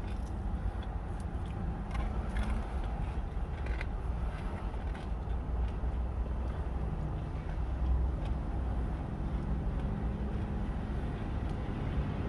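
Steady low rumble of wind, with a faint hum and a few light clicks.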